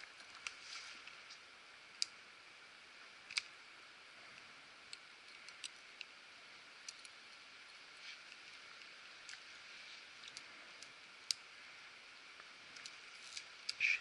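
Raindrops striking an action camera's housing: a dozen or so sharp, irregular ticks, with a small cluster near the end, over a steady faint hiss.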